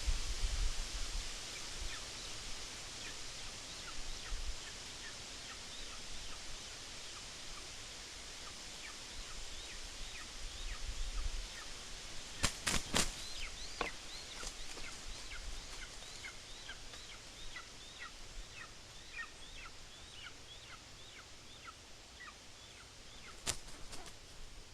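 Lesser spotted eagle calling at the nest: a long series of short, high, downward-slurred yelps, about two a second. A few sharp clicks cut in about halfway and once near the end.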